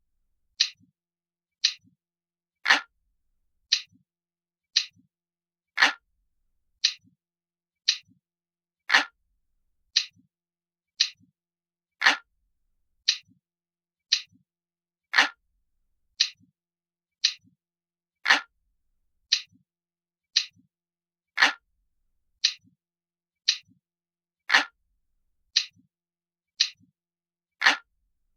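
Analog clock ticking steadily about once a second, with every third tick louder. This is a looped ticking-clock recording.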